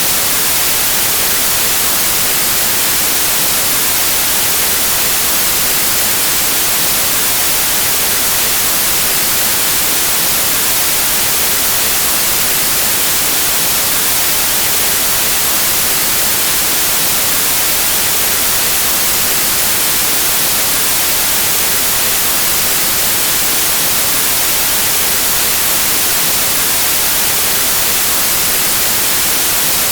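Steady white noise: an even, unchanging hiss, brightest in the highest pitches.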